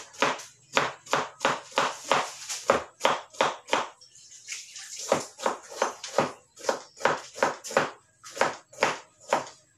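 Kitchen knife chopping bitter gourd (ampalaya) on a plastic cutting board: quick even strokes, about three a second, with a brief pause about four seconds in.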